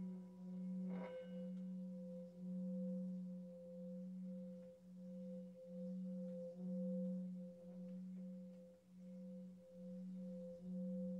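Sustained singing bowl tone: a low steady hum with a fainter higher overtone, wavering in loudness every second or so.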